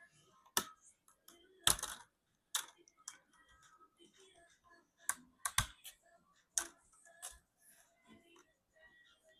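Plastic laptop screen bezel being pressed onto the lid, its clips snapping into place: a series of sharp, irregularly spaced clicks, the loudest about two seconds in, with faint handling rustle between them.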